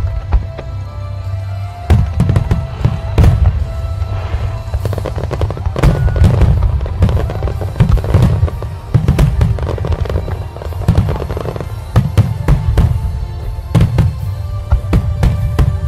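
Firework shells bursting in rapid volleys, many bangs a second from about two seconds in. Music with sustained tones and a steady deep bass plays underneath.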